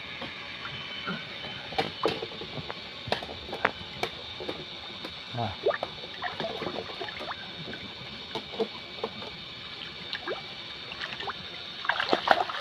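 Fish thrashing and splashing in shallow muddy water while hands grab at them: scattered small splashes and slaps, with a burst of heavier splashing near the end as a fish is seized.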